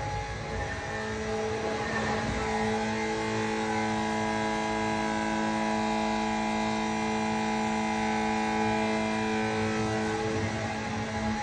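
A motor running steadily: a constant hum with a rushing noise over it, whose tone shifts about two seconds in and drops away just before the end.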